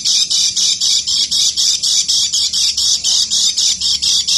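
Kecial kuning white-eye giving its harsh 'ngeker' chatter: a rapid, unbroken run of identical scratchy notes at about seven a second.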